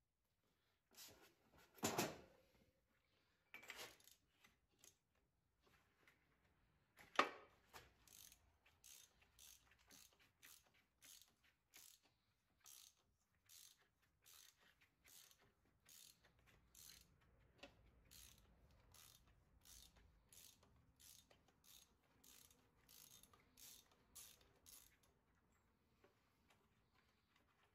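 Ratchet wrench clicking in an even rhythm, about two clicks a second, as it turns a loosened injector out of a Volvo D24 diesel's cylinder head. A few louder metal clanks come before the clicking starts, the loudest about seven seconds in.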